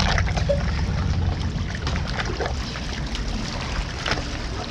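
Swimming-pool water sloshing and splashing as several people wade and run through it in a circle, churning it into a circling current, over a steady low rumble.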